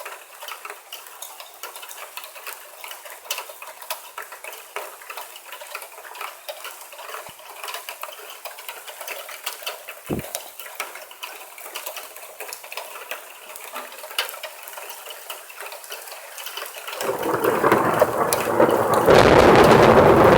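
Rain pattering and dripping with many small ticks, then about seventeen seconds in, thunder from a nearby lightning strike breaks in and swells to a loud, deep rumble near the end.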